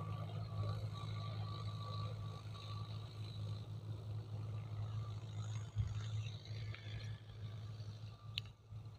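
John Deere 5055E tractor's diesel engine running steadily under load while pulling a plough, heard from a distance as a steady low hum. A thin whine above it fades out about three seconds in, and the hum eases off near the end.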